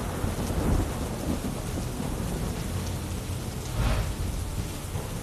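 Heavy rain pouring down, a dense steady hiss with a deep rumble underneath that swells briefly about four seconds in.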